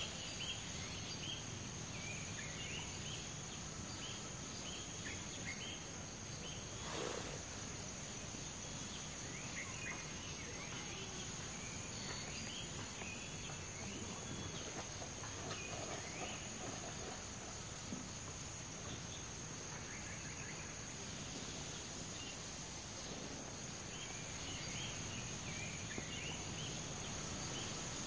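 Tropical forest ambience: a steady high-pitched insect drone with scattered short bird chirps.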